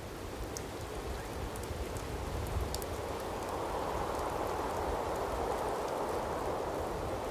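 Steady rain hiss with scattered light drop ticks, growing a little louder about three seconds in.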